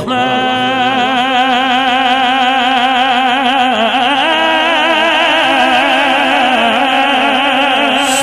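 A male naat reciter singing one long held note with a wide, wavering vibrato and no words, the pitch stepping up a little about halfway through.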